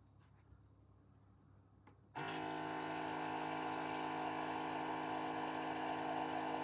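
An electric pump in a kitchen dispensing machine switching on and running with a steady hum, while liquid pours in thin streams into a stainless steel jug. It starts suddenly about two seconds in.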